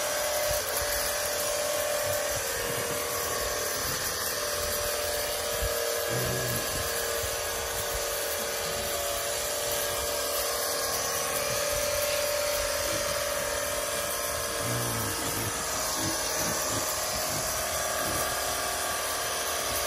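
Small electric spray pump or pressure washer motor running steadily with an even hiss, holding a steady hum.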